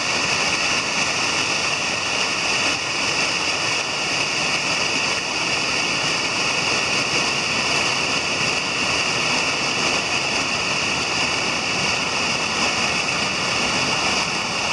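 Small creek waterfall splashing over stepped rock ledges: a steady, even rush of falling water.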